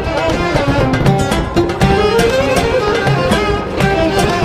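Music with a moving melody line over repeated short percussive hits.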